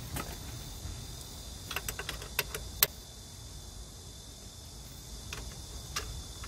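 A few light metallic clicks and clinks, bunched about two to three seconds in, as a highway foot peg and its clamp are handled and fitted onto a motorcycle's tubular engine guard with a hex key. Between them, only a steady faint background hiss.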